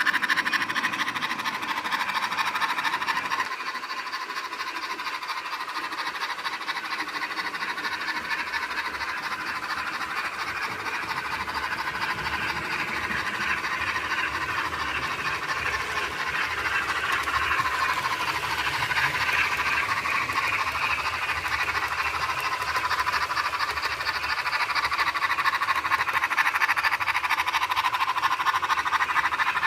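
Model steam locomotive running on a layout, its DCC sound decoder playing steam exhaust and hiss through the loco's small speaker, over the running noise of the model's wheels and motor.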